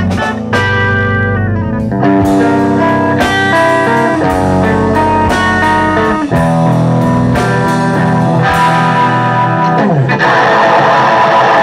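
Live metal band playing: electric guitar and bass guitar riffs over a drum kit, the guitar notes ringing out between drum and cymbal hits. About ten seconds in the sound turns into a dense, noisy wash.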